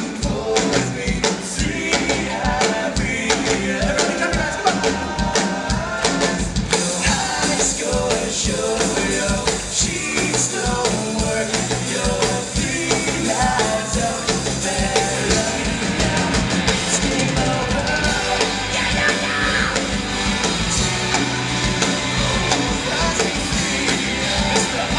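Rock band playing live, with drum kit and electric guitars driving a steady beat and some singing.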